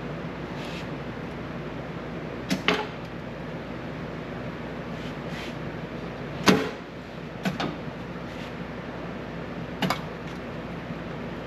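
Sharp metallic clanks from a magnetic sheet-metal brake as a steel repair piece is clamped and bent: a double clank a couple of seconds in, the loudest about halfway, another a second later and a last one near the end, over a steady background hiss.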